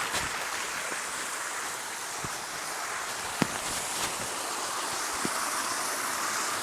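Steady rushing of water cascading down a waterfall into rock pools, with a few sharp clicks, the loudest about three and a half seconds in.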